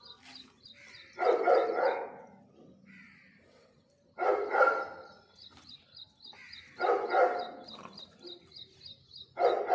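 Bully dogs barking in four short, loud bursts about two and a half seconds apart, during rough play between two littermates.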